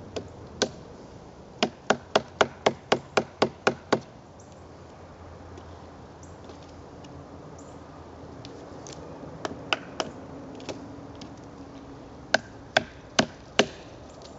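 Wooden baton striking the spine of a Mora Bushcraft knife, driving the blade into a branch. Sharp knocks come in a quick run of about nine at some four a second, then a few scattered strikes, then four more near the end.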